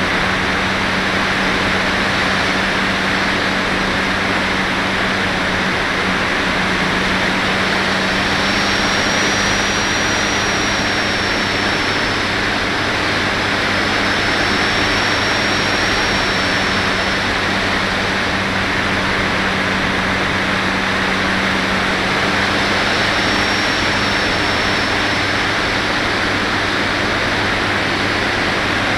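Airflow rushing past the onboard camera of an FPV RC glider in flight: a loud, steady rush with a low steady hum beneath it. A faint high whistle rises and falls a few times.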